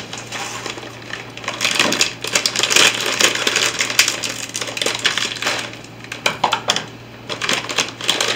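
Plastic bag of dry bread-cube stuffing mix crinkling as it is opened and handled, with the dry cubes rattling inside it, a thick run of small crackles and clicks.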